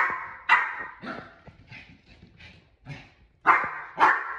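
Small Pomeranian barking, a run of sharp, high yappy barks about two a second, loud at first, softer for a moment in the middle, then loud again near the end.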